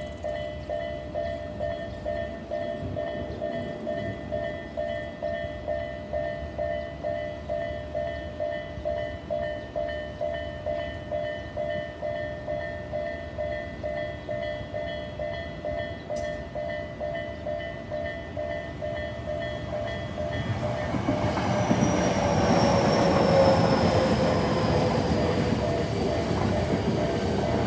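Japanese railroad-crossing warning bell ringing in a steady, even rhythm of about two strokes a second. About twenty seconds in, a train arrives and passes over the crossing, its rumble swelling over the bell, with a slowly falling whine.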